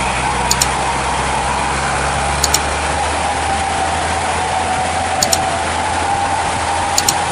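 Heavy truck engine running steadily as it climbs, under a constant hiss of heavy rain. Four short double clicks, a mouse-click sound, come at about two-second intervals.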